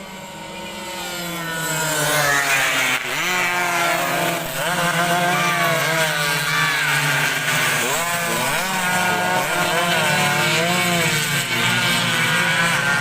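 Two-stroke 116cc underbone racing motorcycles at full throttle, their engines rising in pitch and dropping back again and again with gear changes. The sound swells over the first two seconds, then holds loud.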